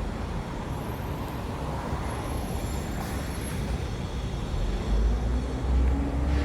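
Street traffic going by, a steady hiss and rumble of vehicles. About five seconds in, the low rumble swells and a vehicle's engine note rises slowly as it pulls away.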